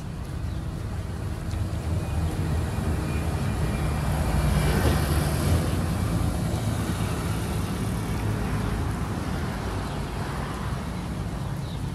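Road traffic rumbling steadily, with one vehicle passing that swells to its loudest about five seconds in and then fades.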